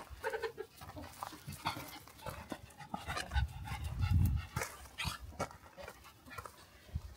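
A dog panting and moving about, among scattered small knocks and rustles, with a low rumble a little past the middle.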